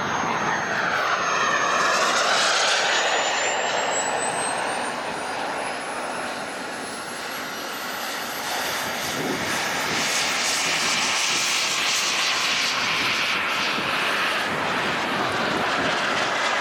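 Turbine engine of a Skymaster A-4 Skyhawk radio-controlled model jet in flight: a rushing jet sound with a thin high whine that climbs slowly in pitch. The sound swells near the start as the jet passes, dips in the middle, then swells again.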